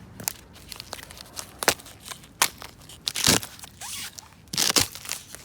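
Thin sheets of frozen ground ice cracking and crunching as they are broken, with scattered sharp snaps and two louder crunching breaks in the second half.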